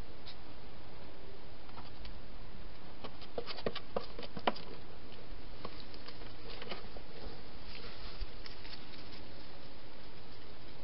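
Hedgehog at a clear plastic feeding box: scattered small clicks and crackles, thickest in a quick cluster about three to four and a half seconds in, over a steady hiss.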